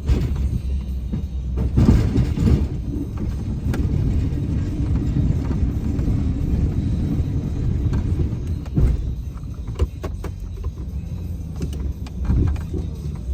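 Snowplow truck's engine running with a steady low rumble while driving, with scattered knocks and clunks, the loudest about two seconds in.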